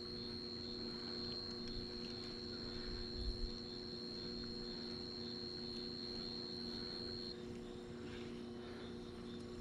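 Steady electrical hum with a thin high steady tone above it that cuts off about seven seconds in; a soft low bump about three seconds in.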